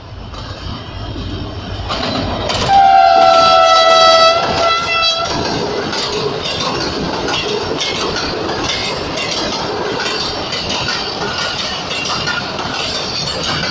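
HGMU-30R diesel-electric locomotive approaching and sounding its horn for about two seconds, a chord whose pitch dips slightly as it passes. Then passenger coaches roll by at speed with a steady clatter of wheels over the rail joints.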